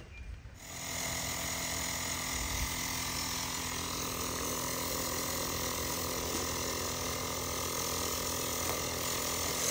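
Built-in air compressor of a Ulixwh jump starter kicking on about half a second in and running steadily, inflating a lawn mower tire.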